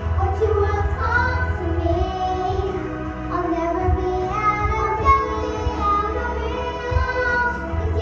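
Two young girls singing a pop duet into handheld microphones, their voices amplified, over backing music with a steady low bass.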